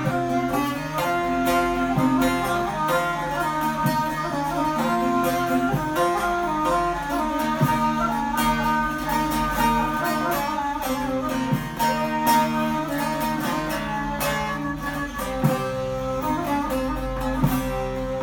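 Bağlama (Turkish long-necked lute) plucked and a kaval (end-blown wooden flute) playing together in an instrumental passage of a Turkish folk song, with the flute's held melody over the rapid plucked strings.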